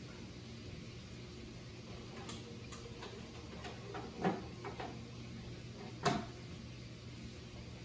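Light plastic clicks and two sharper knocks as the lid and fittings on top of a glass aquarium are handled, over a steady low hum. The clicks start about two seconds in; the louder knocks come a little past the middle and again about a second and a half later.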